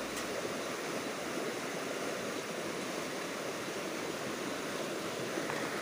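Shallow river rushing over rocks and gravel in a steady, even rush.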